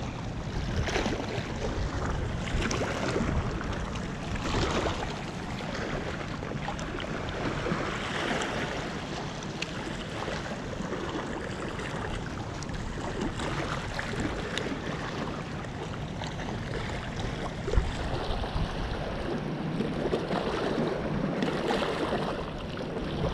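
Small waves lapping and splashing against shoreline rocks, swelling every few seconds, with wind rumbling on the microphone.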